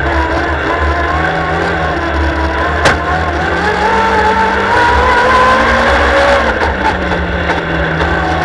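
Superstox oval racing car's engine running hard under race power, heard on board from the cockpit, with a heavy low rumble underneath. Its pitch climbs steadily over a few seconds past the middle, then drops back. A single sharp knock comes about three seconds in.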